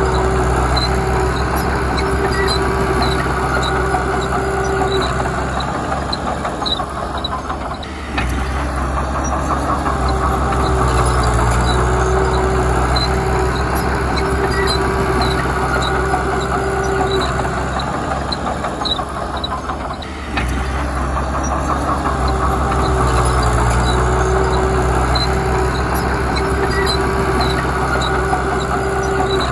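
Komatsu D31P crawler dozer's diesel engine running under load, its pitch and level swelling and easing in cycles, with short drops about eight seconds in and again about twenty seconds in. A faint regular clicking, about two a second, runs over the engine.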